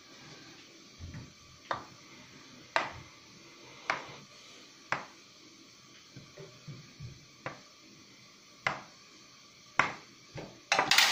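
Sharp metallic clicks about once a second as a thin metal pricker is pushed down through stamped prosphoro loaves and strikes the metal baking tray beneath. The loaves are pierced so they do not puff up hollow under the seal while baking. A short clatter near the end.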